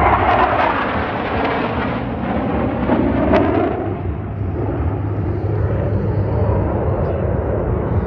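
Jet noise from the Black Eagles' formation of KAI T-50B jets flying past, a broad rushing sound that eases off slowly as the formation draws away. There is a brief sharp click about three seconds in.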